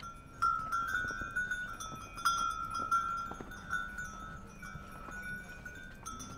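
Metal bells clanking irregularly, each strike ringing at the same pitch, several strikes a second at times.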